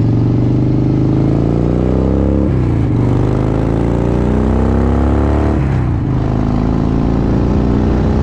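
Motorcycle engine accelerating through the gears: its pitch climbs, drops sharply at an upshift about two and a half seconds in and again near six seconds, then runs steadier.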